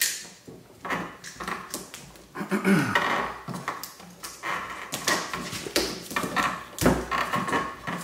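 Utility knife slitting the plastic sheath of yellow Romex (NM) cable, with irregular scraping and rustling as the cable is pulled and worked against the plastic remodel box, and a brief squeak about three seconds in.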